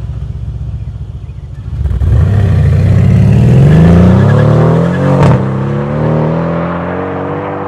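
Mercedes-AMG C63 (W205) twin-turbo V8 through an Eisenmann exhaust. It burbles low at first, then about two seconds in it accelerates hard, the revs climbing steeply. Just past five seconds the revs drop with a sharp crack at a gear change, then it pulls up through the next gear.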